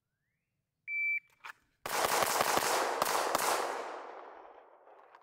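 A shot timer's start beep, one short steady tone, then a faint click and a rapid string of pistol shots packed into about a second and a half, their echo trailing away afterwards.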